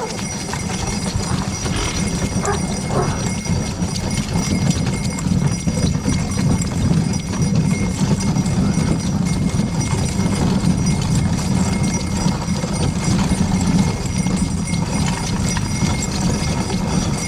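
Hoofbeats of a pair of small driving horses moving in harness over packed snow, over a steady low rumble.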